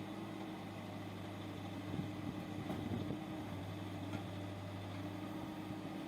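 Diesel engine of a backhoe loader running steadily at a constant speed, with a few light knocks about two to three seconds in.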